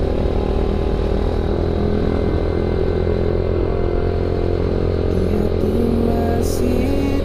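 Motorcycle being ridden along the road at a steady pace: engine running under a steady low wind rumble.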